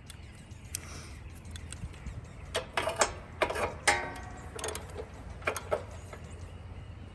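Hand-tool work on a mower engine: a run of metallic clicks and clanks, with a short squeak about four seconds in, as a part is being tightened.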